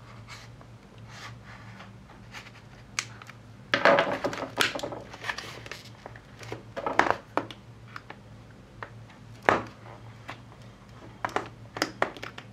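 Hobby knife scratching at hard clear plastic clamshell packaging, with bursts of crackling and crinkling as the stiff plastic is bent and pried apart, the loudest starting about four seconds in. The packaging is tough, and the blade is struggling to cut through it.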